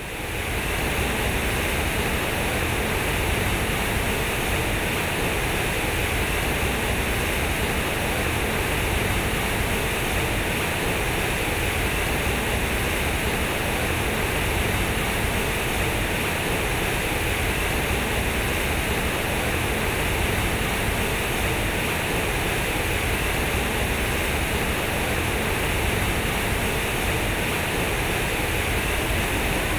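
Large concrete sculptural fountain: heavy streams of water pouring from square concrete spouts and splashing into its pool, a steady rushing sound.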